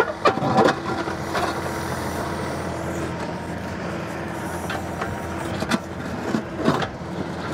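John Deere 2038R compact tractor's three-cylinder diesel engine running under load as the backhoe digs out a rock, with several sharp knocks and scrapes of the bucket against rock and dirt, a cluster in the first second and more near the end.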